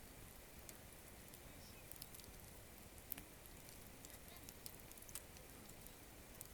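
Wood campfire crackling faintly: scattered small snaps and pops over a low hiss, the sharpest about three seconds in.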